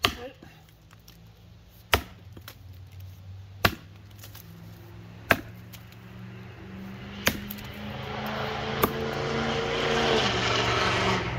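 Council Tool FE-6 six-pound axe chopping into a standing wood block: six sharp strikes, one every one and a half to two seconds, the head glancing a fair bit. Behind the later strikes a low hum with a rushing noise grows louder, then drops off near the end.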